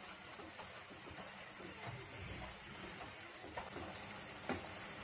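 Maggi noodles simmering in a pan of spiced tomato-and-corn water, a faint steady sizzle, while a wooden spatula breaks up and stirs the noodle cakes. The spatula taps the pan a couple of times in the second half.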